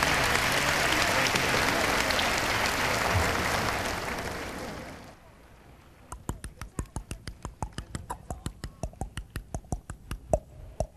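Audience applauding, fading out about five seconds in. Then a quick run of sharp taps or knocks, about six a second.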